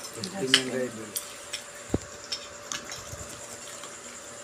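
Fried peanuts being picked by hand off a plate: scattered light clicks and taps of nuts and skins against the dish, with one dull knock about two seconds in.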